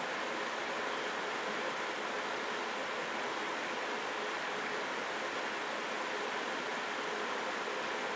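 Steady, even hiss of background noise, unchanging throughout; no stag roar or other animal call stands out.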